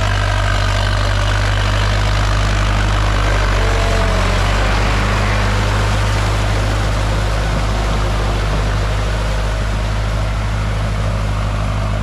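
Tractor engine running steadily while it ploughs a wet rice field. It eases off slightly in the second half.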